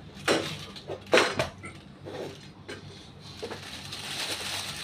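Three loud, sharp knocks or clatters in the first second and a half, a few smaller ones after, then a steady hiss that grows louder near the end.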